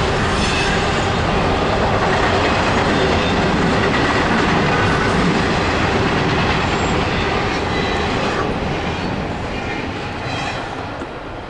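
Double-stack intermodal freight train rolling over a steel girder bridge: a steady rumble and clatter of wheels on rail, with a few faint high squeals. The sound fades over the last few seconds as the cars pass.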